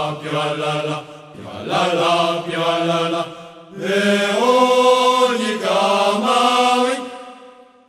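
Voices singing a slow, chant-like song in held phrases. The last and longest phrase fades out near the end.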